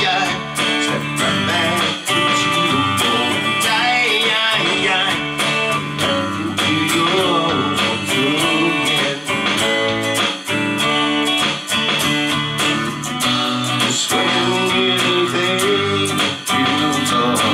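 A man singing a country-flavoured song while strumming an electric guitar.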